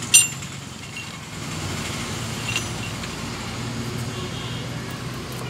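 A sharp metallic clink just after the start as steel gears in the Ape auto gearbox are set and handled, then a fainter click a couple of seconds later. Both come over a steady low vehicle hum.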